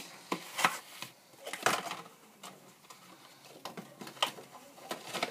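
Irregular clicks and light taps of small hard objects being handled, a few sharper than the rest.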